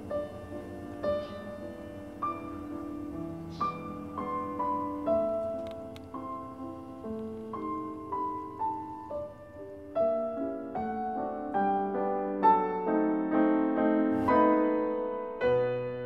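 Background piano music: a gentle melody of single notes over chords, growing louder and busier about two-thirds of the way through.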